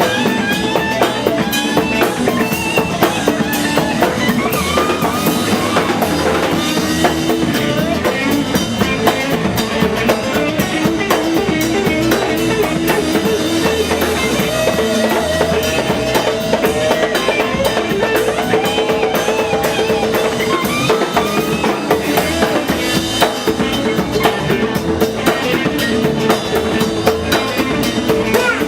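Live samba-rock band playing: drum kit with kick and rimshots keeping a steady groove under guitar and other pitched parts.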